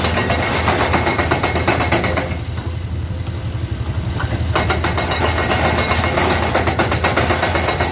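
Komatsu PC210 hydraulic excavator's diesel engine running under load, with a fast, rapid clatter from the machine working. The clatter stops for about two seconds a little past two seconds in, then starts again while the engine hum carries on.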